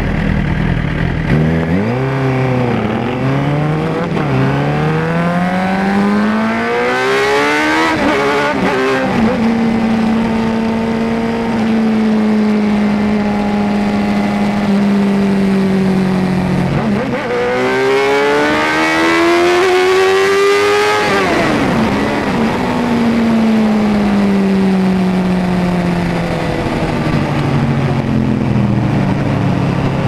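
Suzuki GSX-R750 inline-four engine pulling away hard from a stop, the revs climbing and dropping at each of several quick upshifts, then holding steady at cruising speed. About halfway through the revs dip, then rise steeply in a second hard pull before easing off again.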